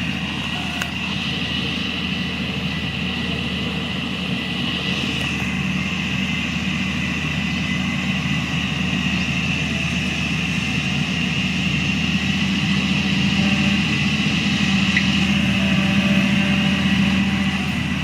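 Diesel engine of heavy earthmoving machinery running steadily, growing louder in the second half, with a steady high-pitched tone over it.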